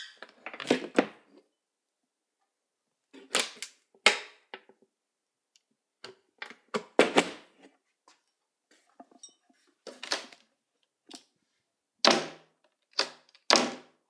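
Cabinet door being handled, opened and shut: about six short clusters of knocks and clicks a few seconds apart, without the long gliding creak.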